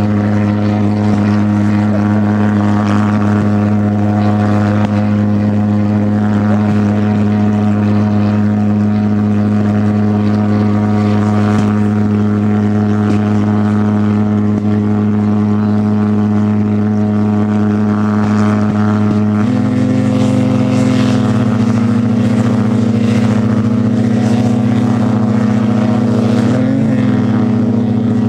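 Model jet's engines running on the ground, a loud steady drone. About two-thirds through the pitch steps up, and it wavers near the end.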